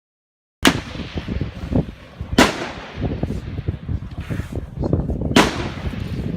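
Three rifle shots, about two and three seconds apart, each a sharp crack with a short ringing tail, over a steady low rumbling noise.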